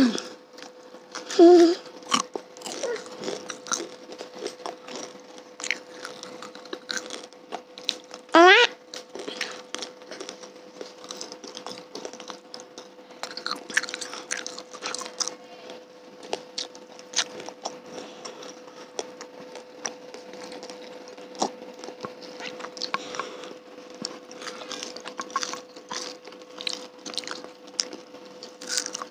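Close-miked chewing and biting of fried cilok tapioca balls: many small crunchy clicks and mouth sounds, over a faint steady hum. Two brief rising vocal sounds stand out, about 1.5 s and 8.5 s in.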